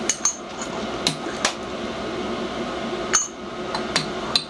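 Irregular light metallic clinks and taps, about eight of them, as a brass disc and a steel tool are handled against a steel doming block, over a steady background hum.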